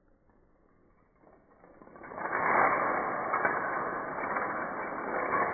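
A long chain of toy dominoes toppling one after another: a rapid, continuous clatter of small clicks that builds up from about a second in and runs on without a break.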